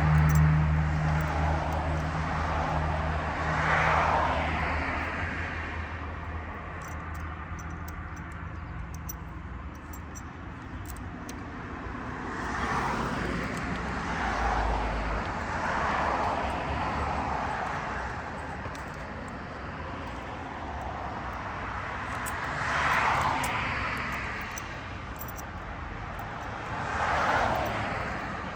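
Vehicles passing by one after another, each swelling and fading over a second or two. A low engine hum at the start fades out within the first few seconds.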